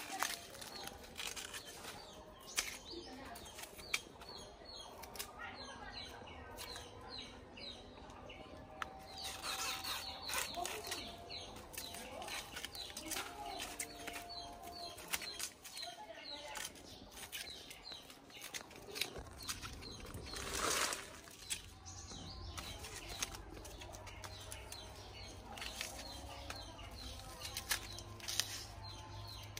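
Fibrous sheaths of a banana pseudostem being peeled and snapped off by hand to reach the white inner core: repeated sharp snaps and rustling, with a louder crackling tear about twenty seconds in. Small birds chirp in the background.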